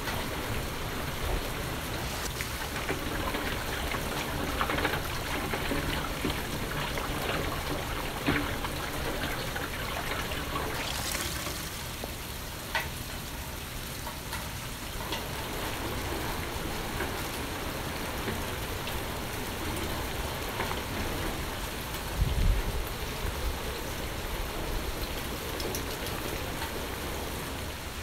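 Steady rain falling, with scattered sharper drip sounds. About three-quarters of the way through, a brief low rumble.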